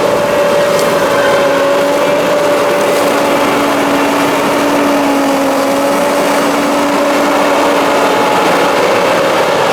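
John Deere 9600 combine running steadily while harvesting corn: a constant machinery drone with a steady held whine.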